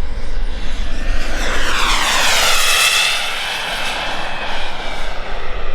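KingTech K86 turbine of a 1/8-scale RC F-16 jet whining past in a flyby, its pitch sweeping up then down as it passes, loudest in the middle, over a low rumble of wind on the microphone.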